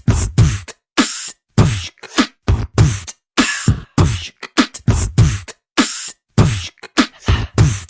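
A beatboxer's mouth-made hip-hop beat: deep kick-drum sounds that drop in pitch, alternating with hissing snare and hi-hat sounds in a steady repeating rhythm.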